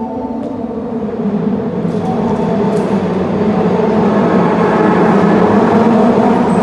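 Osaka Metro Midosuji Line subway train running along the platform, its rumble growing steadily louder.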